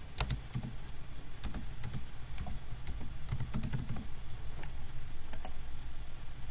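Typing on a computer keyboard: a quick run of key clicks for about four seconds, then a few separate clicks near the end.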